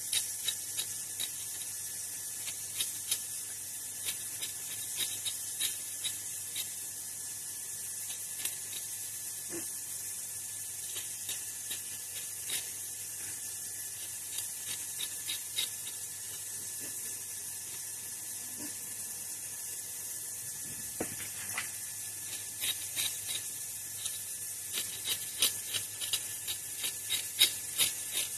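Kitchen knife cutting through a vegetable held in the hand: short irregular clicks as the blade cuts, coming in quick runs and sparser in the middle, the loudest near the end, over a steady hiss.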